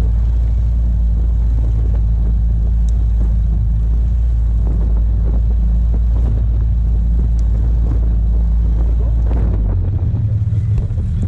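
Outboard motor running steadily at speed, pushing an inflatable boat, with a loud, steady low drone under rushing wind and water. About ten seconds in the deepest rumble drops away and the sound turns more uneven.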